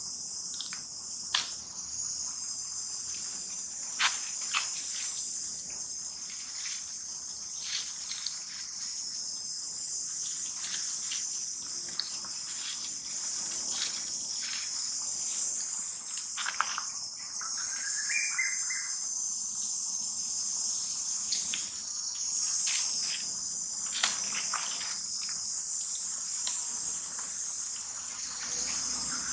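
Steady high-pitched insect chorus, like crickets or cicadas, with scattered sharp clicks and a short rising chirping call about 17 seconds in.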